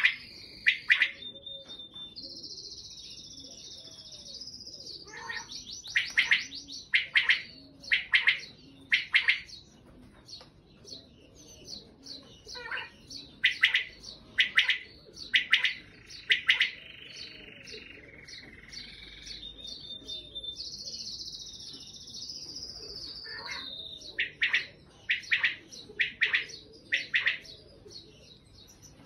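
Common quail calling: loud, sharp call phrases about a second apart, in runs of four or five with pauses between. Another bird's long falling high call comes twice, near the start and about two-thirds through.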